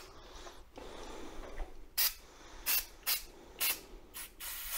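Aerosol brake cleaner being sprayed from the can into a seized handbrake lever mechanism to flush it out. A faint hiss comes first, then a series of short sharp spray bursts about half a second apart, with a slightly longer burst near the end.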